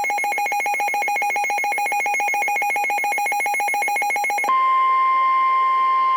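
Emergency alert tones: a fast-pulsing, warbling electronic alert that switches abruptly about four and a half seconds in to a single steady tone, the weather radio warning alarm tone that comes before the flash flood warning message.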